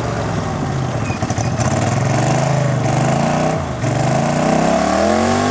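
Lifted golf cart's V-twin engine revving as the cart drives. The revs drop briefly about three and a half seconds in, then climb again near the end.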